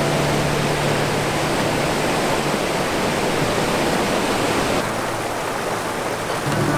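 Small mountain-creek waterfall rushing steadily into a pool, a dense hiss of falling water; the sound turns duller about five seconds in.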